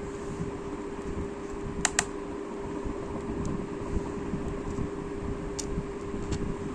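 Small screws being driven into a laptop's hard-drive bracket with a screwdriver: a few sharp little clicks, two close together about two seconds in and more later, over a steady hum.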